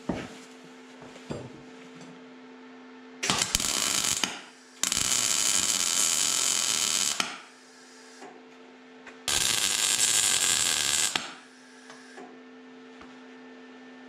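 MIG welder arc crackling as it spot-welds a sheet-steel repair panel, in three bursts of one to two seconds each, the first about three seconds in and the last about nine seconds in. A steady low hum runs underneath between the welds.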